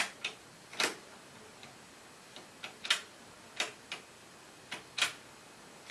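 Transport keys of a Koss stereo's cassette deck being pressed and released: a string of sharp mechanical clicks at uneven intervals, with no tape loaded.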